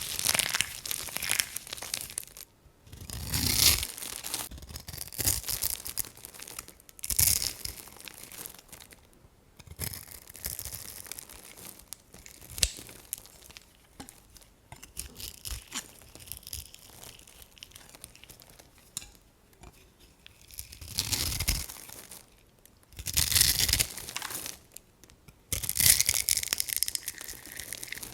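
Dry soap crunching and crackling as it is crushed or cut, in repeated bursts with short pauses between them.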